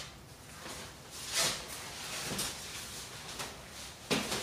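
Fabric of a pop-up privacy tent rustling and swishing as the tent is turned and tilted by hand, with a louder swish about a second and a half in and a sharper one near the end.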